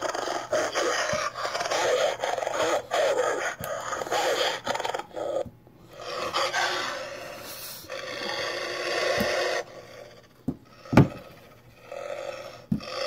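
Plastic toy wolf and polar bear figures being scraped and knocked against each other and the playset floor, a rough scraping with scattered clicks and a sharper knock near the end.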